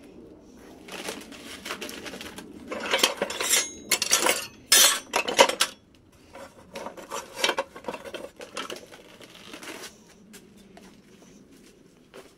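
Old frying pans clattering and clanking against each other and the scrap metal around them as they are picked up and stacked. The loudest clangs come in a quick run from about three to six seconds in, followed by lighter clinks.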